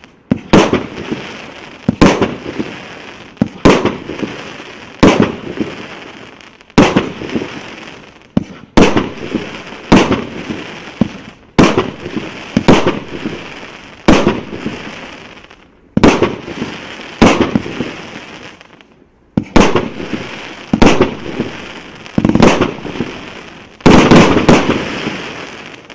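A 1.2-inch, 25-shot firework cake (aerial repeater) firing shot after shot, about one every second or so, each a sharp bang followed by a fading hissing crackle as the stars burn. The loudest shots come as a close pair near the end.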